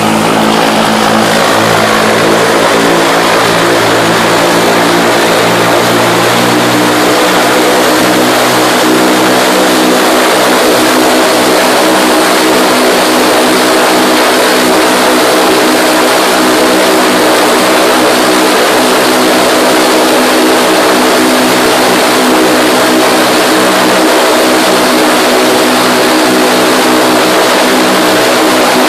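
MWfly aircraft engine running on a test bench during its test run after assembly: a loud, steady engine note whose speed rises a little over the first several seconds and then holds.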